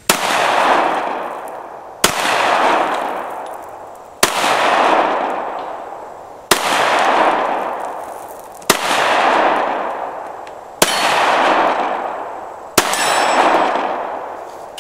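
Glock 43 9mm pistol fired seven times, a shot about every two seconds, each sharp crack followed by a long echo that dies away over nearly two seconds.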